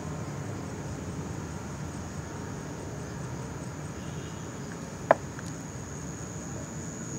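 Night insects, such as crickets, trilling steadily over a low background rumble, with one sharp click about five seconds in.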